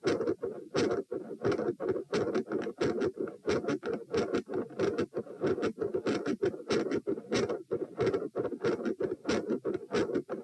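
Heart sounds recorded at the chest: a steady, continuous rushing murmur with many rapid, irregular scratchy clicks over it.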